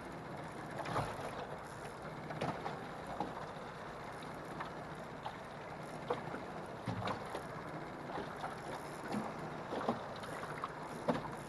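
Small waves lapping against a rocking aluminium jon boat, with light wind on the microphone and a few soft knocks scattered through.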